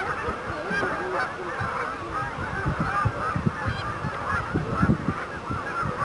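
A large flock of geese honking continuously, many calls overlapping at once, with some dull low thumps mixed in.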